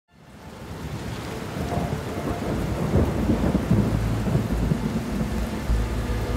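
Rain with rolling thunder, fading in from silence over the first second.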